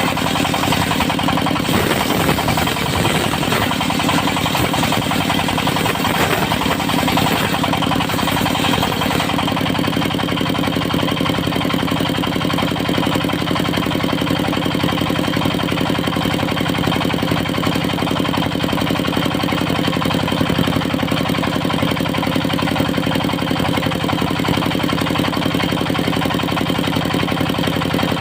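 The engine of a portable circular-saw sawmill running steadily. For roughly the first nine seconds a harsher hiss rides on top, then it settles to a plain steady run.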